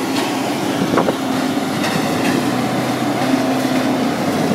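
Morbark 1200 tub grinder running under load, its 12-cylinder Cat diesel engine and grinding mill chewing logs and brush into wood chip: a steady heavy mechanical din with a few sharp knocks.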